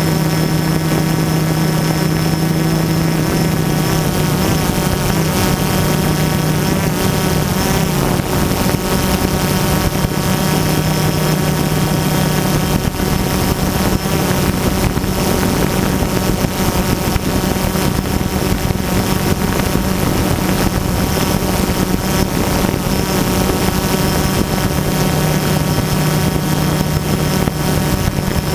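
DJI Phantom quadcopter's electric motors and propellers running at a steady pitch as it hovers, heard from the GoPro mounted on the drone itself: a loud, even, many-toned whine.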